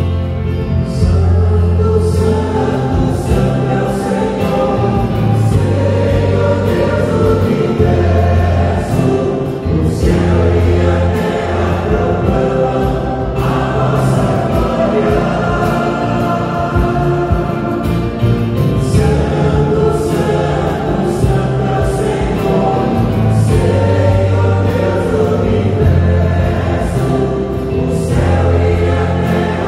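Catholic hymn sung by a mixed group of singers in unison, accompanied by a Nord Electro stage keyboard and an acoustic guitar, with steady held bass notes under the voices.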